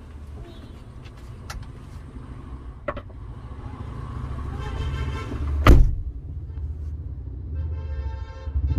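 Car with a steady low rumble and a few small clicks. A single loud thump comes a little before six seconds in, and near the end a car horn starts to sound.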